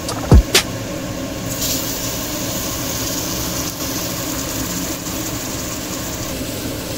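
Food sizzling steadily in a cooking pan over the burner, with two sharp knocks of a utensil against the pan in the first second; the hiss grows brighter about a second and a half in.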